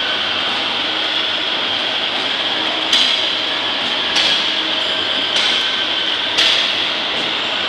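Powder stick packing machine running with a steady whir and hiss, and from about three seconds in a sharp clack roughly once a second, four times, as its sealing and cutting stroke closes on the film.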